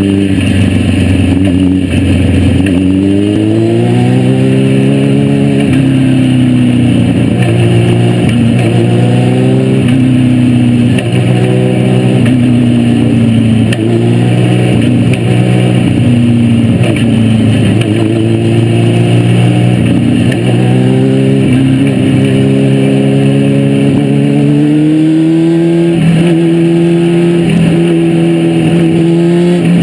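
Legends race car's Yamaha motorcycle engine heard from inside the cockpit, repeatedly revving up and easing off while rolling at low speed. It settles to a steadier note near the end.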